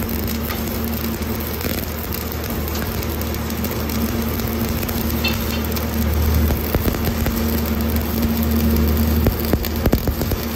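Stick (shielded metal arc) welding: the electrode's arc crackling steadily as a bead is laid, over a steady low hum. The crackle grows a little louder in the second half.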